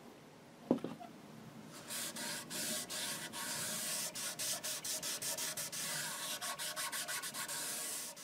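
Cloth pad rubbing wood stain onto a bare ash guitar body in quick back-and-forth strokes, about three a second, blending yellow stain into the red edge of a sunburst. A brief knock comes about a second in, before the rubbing starts.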